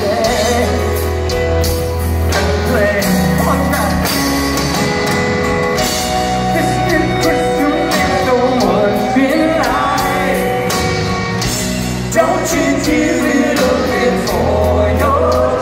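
Live rock band playing a power ballad through a concert sound system: a sung lead vocal over electric guitars, keyboards and drums, heard from among the audience.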